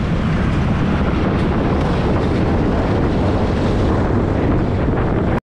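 Wind buffeting the microphone over a scooter's engine and road noise while riding along. The noise is steady and cuts off suddenly at the very end.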